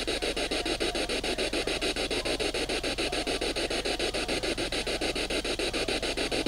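Ghost box (spirit box) sweeping through radio stations: static chopped into a fast, even stutter, played while waiting for an answer to a question.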